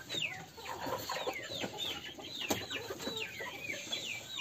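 Chickens calling: a continuous run of short, high-pitched calls that each fall in pitch, two or three a second, with lower clucks among them.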